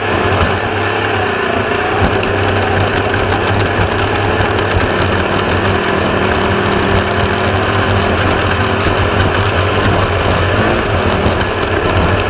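Class 1/2-1600 off-road race buggy running steadily, its 1600 cc air-cooled Volkswagen engine droning under a dense mechanical rattle.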